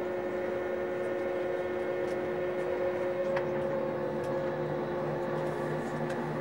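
Steady cabin hum inside an Airbus A321neo airliner on the ground, with a few steady tones in it. A bit after halfway there is a faint click, and then a low hum starts coming and going in even pulses.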